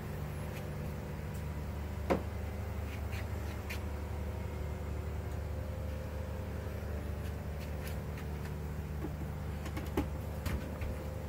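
Steady low mechanical hum of a Gemmy life-size animated Santa's drive motor, with a sharp click about two seconds in and another near the end.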